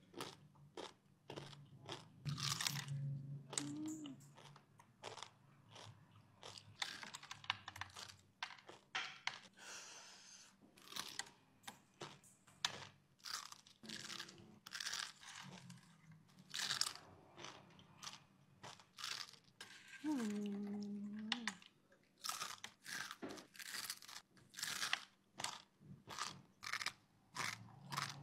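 Dry, crunchy fried stick noodles (mie lidi) being bitten off and chewed close to the microphone: a rapid run of sharp crunches, one after another. A brief pitched hum comes about two-thirds of the way through.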